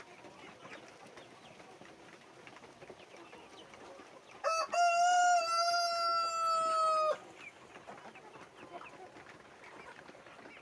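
A rooster crows once: a long call of about two and a half seconds with a short opening note, rising slightly and then slowly falling before it breaks off.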